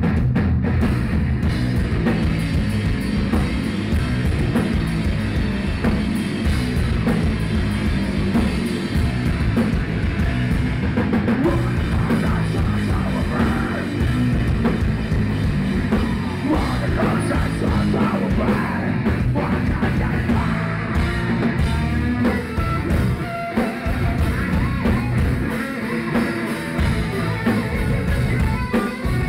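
Heavy metal band playing live through a club PA: electric guitar and a drum kit, with a singer's voice over them.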